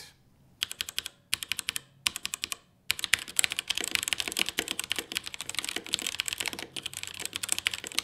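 Typing on a keyboard with Razer Yellow linear mechanical switches: three short bursts of rapid keystrokes in the first three seconds, then fast continuous typing.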